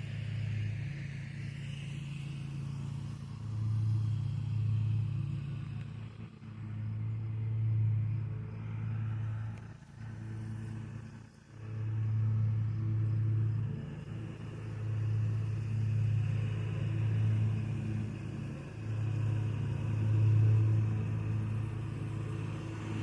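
Distant zero-turn riding mower's engine running steadily, a low hum that swells and fades every couple of seconds.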